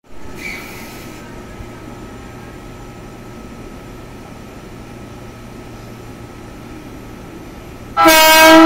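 Steady hum from the stationary E233 series electric train, with a brief hiss near the start. About eight seconds in, the train's emergency horn blasts loudly, a sustained chord of several tones, still sounding at the end.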